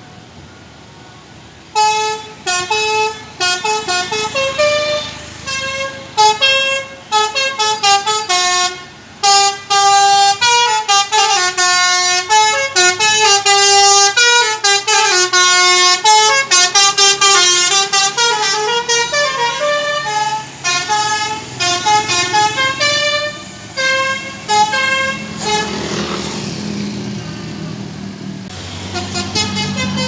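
Basuri telolet horn on a tour bus playing a long, fast melody of short stepped notes, starting about two seconds in and running to about three-quarters through. A vehicle engine then runs under it, and the horn notes start again near the end.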